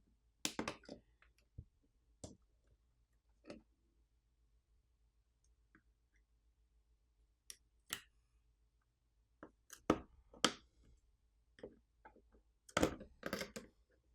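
Scattered sharp clicks and taps of small tools and parts being handled while a tablet is taken apart, with a rattling cluster about half a second in and another near the end.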